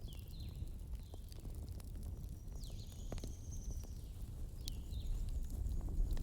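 Campfire crackling, with scattered sharp pops over a steady low rumble. Through it a bird calls in short falling chirps, along with one longer whistle in the middle.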